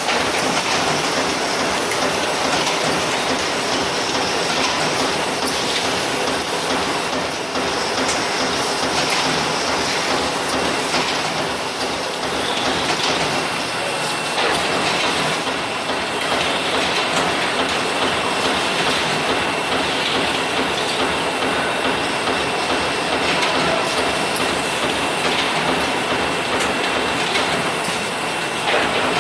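Automated refrigerator-bag making machine running steadily, a continuous mechanical clatter with repeated clicks; a thin steady whine comes in about halfway through.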